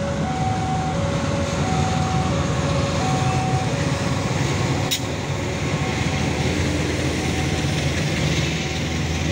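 Diesel-electric locomotive and passenger coaches passing close by, with a steady low engine drone and rolling-wheel noise. Over it a two-note tone alternates high and low about every half second, strong for the first few seconds and fainter after, and there is one sharp click about five seconds in.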